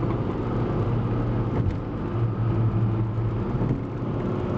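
Steady road and engine noise inside a moving car's cabin at freeway speed: a low drone with tyre rumble and hiss.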